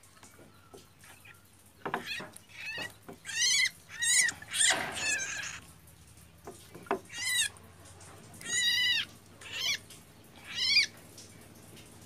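A wet nestling bird, held in a hand over a tray of water, gives about seven quavering, high-pitched calls in a row. There are a few short splashes or knocks just before them.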